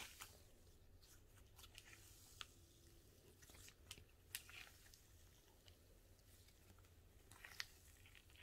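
Faint scattered crackles and small pops of store-bought cloud slime being stretched and squished by hand, the sharpest a little after halfway and near the end.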